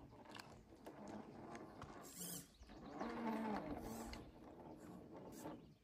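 Scale RC rock crawler climbing a rock ledge: its electric motor and geared drivetrain whine in a low, wavering tone that swells a little past the middle as the throttle is worked, with scattered clicks and scrapes of the tyres on the rock.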